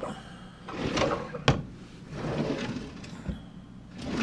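Wooden kitchen drawers sliding open and shut, with a sharp knock about a second and a half in.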